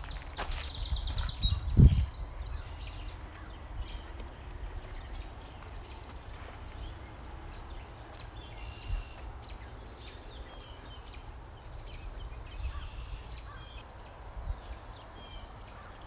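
Songbirds singing around a marsh: a rapid high trill just after the start, a short high call about two seconds in, then scattered faint calls. Under them runs a steady low rumble, with a single thump about two seconds in.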